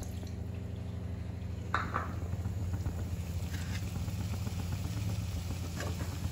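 Steel ladle in a steel kadai of simmering onion gravy: one sharp knock about two seconds in and a few light scrapes and clinks later, over a steady low hum.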